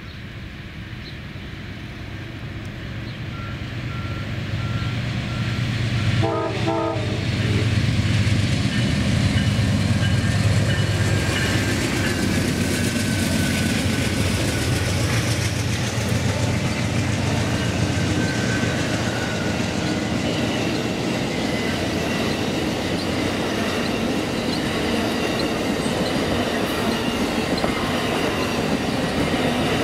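Amtrak Auto Train led by two GE Genesis diesel locomotives approaching and passing close by, growing louder over the first several seconds. The horn sounds briefly about six seconds in, the diesel engines are loud as they go by, and then the bi-level Superliner passenger cars roll past with wheels clicking over the rail joints.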